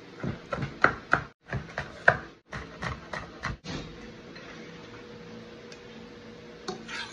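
Chef's knife slicing green chilies on a wooden chopping board: irregular sharp knocks of the blade striking the wood, several a second, for about three and a half seconds. After that only a faint steady hum.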